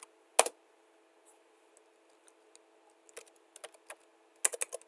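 Computer keyboard being typed on in scattered keystrokes: one sharp key click near the start, a few more after about three seconds, then a quick run of several near the end.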